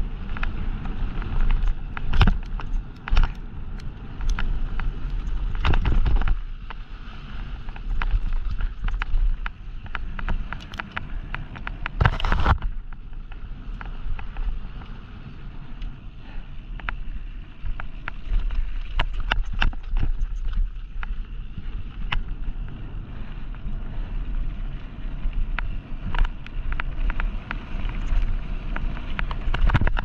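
Mountain bike running fast down a gravel trail: tyres rolling and crunching on loose gravel, wind buffeting the microphone, and frequent clicks and rattles from the bike over bumps, with a louder rush about twelve seconds in.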